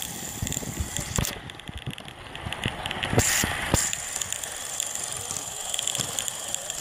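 Small garden-scale model steam locomotive running along the track: irregular clicking and rattling over a steady hiss, with a short louder rush of noise about three seconds in.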